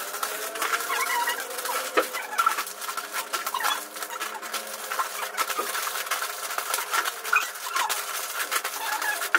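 Plastic grocery bags and snack packets crinkling and rustling as they are handled, with short chirping calls, like birds or chickens, heard through it.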